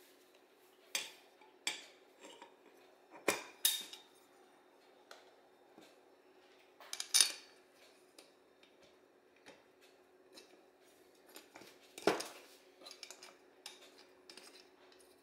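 Small steel screws and metal parts clinking and tapping against an Autolite 2100 carburetor as the air-horn screws are picked up and fitted. The clicks are scattered and irregular, the loudest about three and a half, seven and twelve seconds in.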